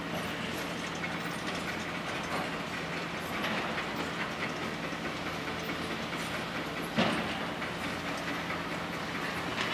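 Hitachi ZAXIS 650LCH excavator's diesel engine running steadily while its demolition crusher works in the rubble, with scattered metallic clanks and knocks and one loud sharp bang about seven seconds in.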